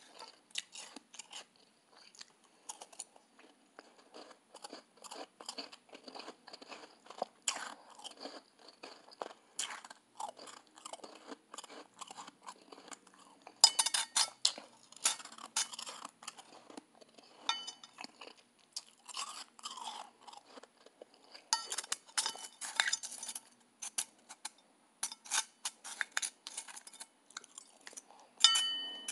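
Close chewing and crunching of soft blender-shaved ice: a steady run of small crunches, with louder bouts about halfway through and again a few seconds later. Near the end the spoon knocks against the stainless steel bowl, which rings briefly.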